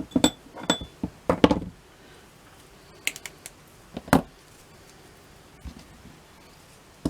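Craft materials being handled and set down on a work table. A quick run of taps and knocks comes in the first second and a half, then a few light clicks, then a single solid knock a little after four seconds in.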